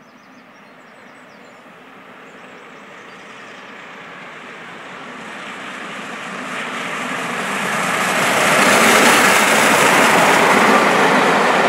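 LNER Peppercorn A1 class 4-6-2 steam locomotive 60163 Tornado, a three-cylinder Pacific, approaching at speed with its train. The sound grows steadily louder over about nine seconds and then stays loud as the engine passes close by.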